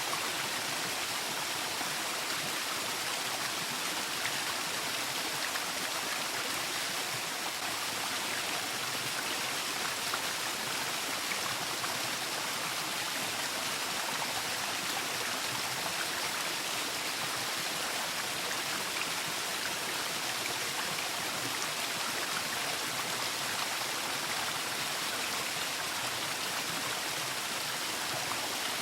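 Waterfall: water rushing and splashing in a steady, even rush with no breaks.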